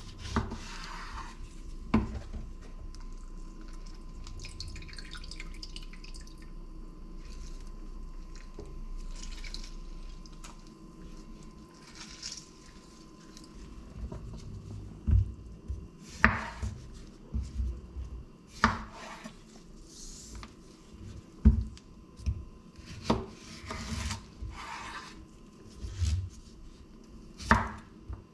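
Chef's knife cutting on a bamboo cutting board: a few knocks as a lemon is cut, then handling and scattered blade strikes, with a quicker run of chops near the end as a cucumber is sliced into rounds. A faint steady hum sits under the first half.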